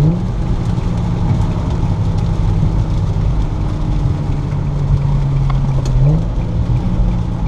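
Infiniti G35's VQ35DE V6, fitted with Crawford headers and a Stillen catback exhaust, droning steadily while driving on wet roads; its pitch steps up a little at the start and again about six seconds in as the revs rise.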